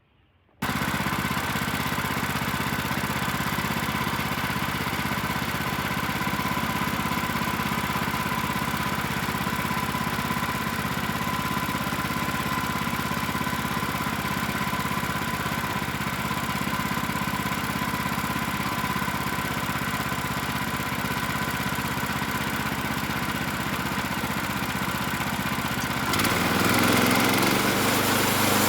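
Gasoline engine of a Woodland Mills HM126 portable band sawmill running steadily, the band blade turning; it starts abruptly about half a second in, and near the end the sound gets louder and changes.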